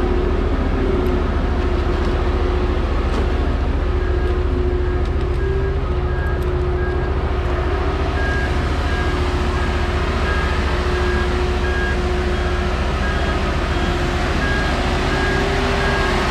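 Marine Travelift 50 BMII boat hoist running steadily, its engine and hydraulics making a constant rumble with a hum. A short high warning beep repeats about once a second over it.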